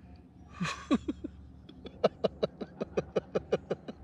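A person's quick breathy gasp just under a second in. From about two seconds in, a steady run of short voiced huffs follows, about five a second, the rapid breathing of a swimmer in cold water.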